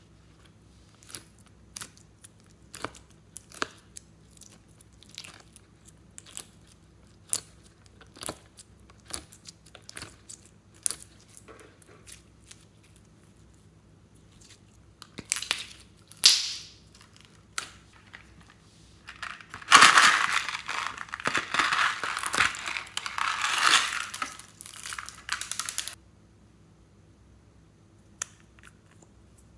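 Glossy slime being worked by hand: sticky pops and clicks about every half second as it comes away from a heart-shaped mold, then about six seconds of dense, loud crackling as it is stretched and pressed, stopping suddenly.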